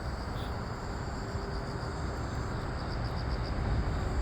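Insects, likely crickets, chirping in a faint, evenly pulsing high trill over a steady low rumble.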